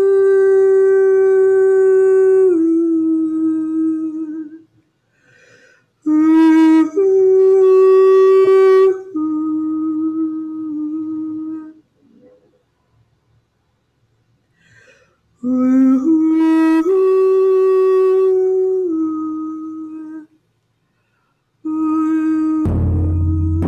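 A woman singing long, wordless held notes that step down in pitch from one to the next, in phrases separated by short silences. About a second before the end, low frame-drum beats come in under her voice.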